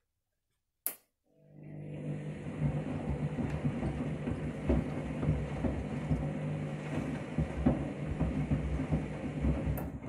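Front-loading washing machine on its wash action: a click about a second in, then the drum starts turning, with the motor humming steadily under sloshing water and shoes knocking irregularly against the drum.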